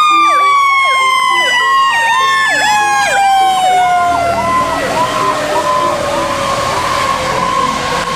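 Fire engine siren: a fast repeating yelp over a long wail that falls steadily in pitch, like a siren winding down, and then holds on one note near the end.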